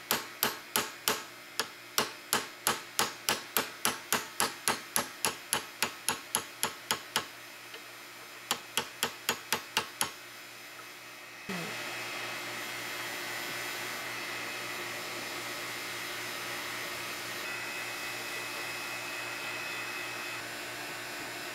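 Hammer striking a thin steel punch to drive out the pin holding a C4 Corvette pop-up headlight motor carrier: sharp metallic taps about three a second for some seven seconds, a short pause, then a quicker run of about six more. A little past halfway the tapping stops and a steady airy hum takes over.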